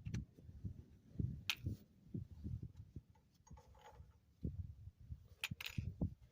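Faint scattered low knocks, with a few sharp clicks about a second and a half in and again near the end.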